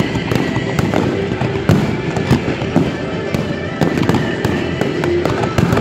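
Fireworks display: aerial shells bursting and crackling with a dense, unbroken run of sharp bangs and pops, while ground fountains fire.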